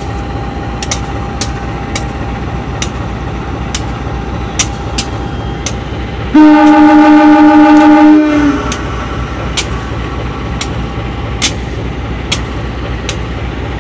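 Diesel-electric locomotive of the CC 201 class (GE U18C) idling with a steady low rumble and occasional sharp ticks; about six seconds in it sounds one long horn blast of nearly two seconds, the signal that the train is about to depart.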